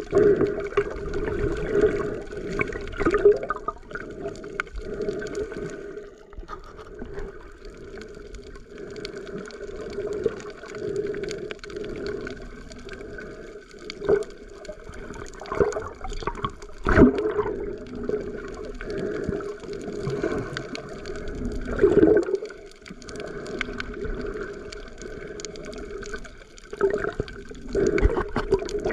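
Muffled water sound picked up by a camera held underwater: swishing and gurgling water with irregular knocks and thumps, a few of them louder.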